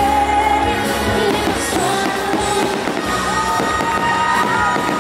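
The fireworks show's music plays loud and steady, with fireworks crackling and popping over it from about a second in.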